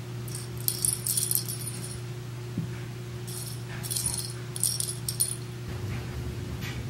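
Small bell jingling in three short bursts, with Bengal cats batting and pouncing at a toy on carpet. A steady low hum runs underneath.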